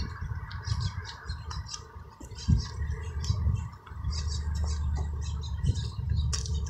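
Birds chirping over and over above a steady low rumble of freeway traffic.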